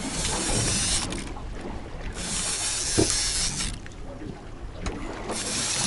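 Wind buffeting the microphone in three gusts, a rushing hiss that swells and falls away, with a short knock about three seconds in.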